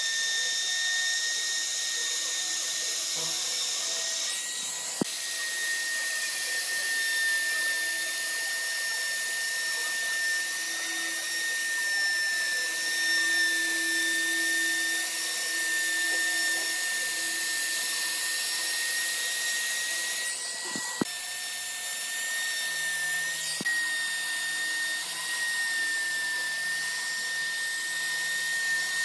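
Compact trim router running with a steady high-pitched whine as its bit carves a decorative groove into a wooden board, with two short breaks, about five seconds in and again near twenty-one seconds.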